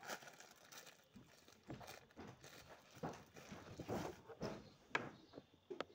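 Thin plastic bag crinkling and rustling in irregular crackles as a hand rummages in it, with a sharp click near the end.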